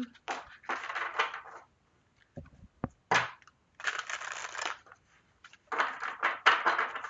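A deck of oracle cards being shuffled by hand in four rustling bursts with short pauses between, and a couple of soft low thuds about two and a half seconds in.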